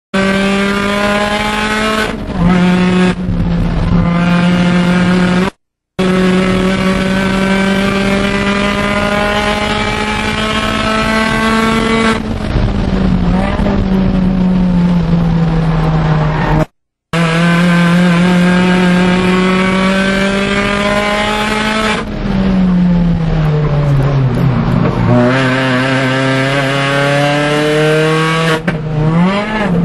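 Supercharged 1.6-litre four-cylinder engine of a first-generation MINI Cooper S, heard from inside the cabin while driven hard at high revs. Its note climbs slowly, breaks at gear changes, then falls under braking about three-quarters through and climbs again. The sound cuts out completely twice for a moment.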